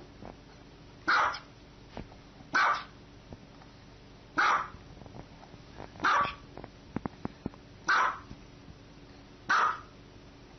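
Small white fluffy dog barking six times, single sharp barks spaced evenly about every one and a half to two seconds.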